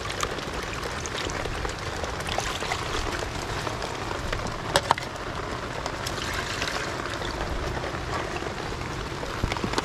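Steady rain falling, with scattered drops ticking and two sharp clicks close together about halfway through.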